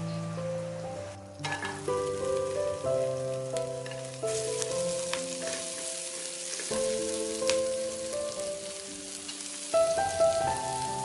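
Diced onion and garlic sizzling in oil in a non-stick frying pan as a spatula stirs and scrapes them, with scattered clicks of the spatula on the pan. The sizzle grows louder about four seconds in. Background music with sustained notes plays throughout.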